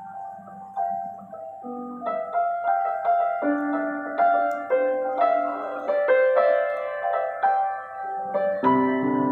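Acoustic grand piano playing a melancholy piece: sparse single notes at first, then a fuller melody with chords from about two seconds in, and low bass notes joining near the end.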